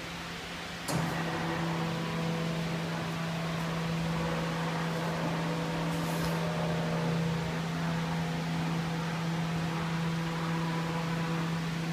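Cement 3D printer running, its stepper motors giving a steady hum that starts abruptly about a second in, while the nozzle moves and extrudes cement.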